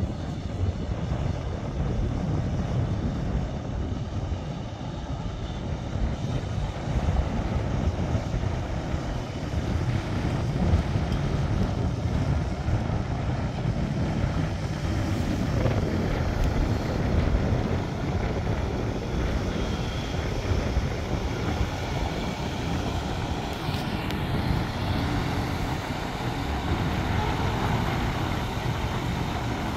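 Diesel engine of a heavy-haul semi tractor running steadily at low speed, a continuous deep rumble, as it pulls a long multi-axle trailer loaded with a large transformer through a turn.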